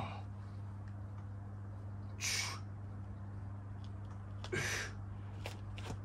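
A man breathing out hard twice, in short puffs about two seconds apart, as he works through dumbbell chest flies. A steady low hum lies underneath, with a couple of faint clicks near the end.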